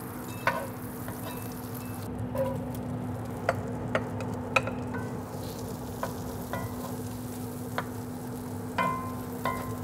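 Diced tasso ham sizzling in melted butter in a cast iron skillet as it is stirred with a wooden spoon, with a scattering of sharp clicks and a steady low hum underneath.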